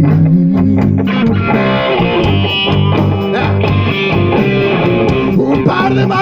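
Live blues-rock band playing: electric guitars over bass and drums, with steady regular drum hits.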